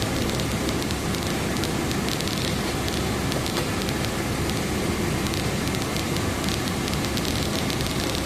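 Steady rush of air from a car's cabin blower fan on full blast drawing in outside air, mixed with an aftermarket heater's fan, heard inside the car with faint fine crackling ticks over it.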